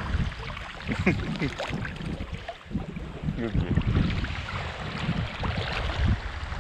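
Water splashing and sloshing close to the microphone, with short bubbling gurgles, as someone swims at the surface.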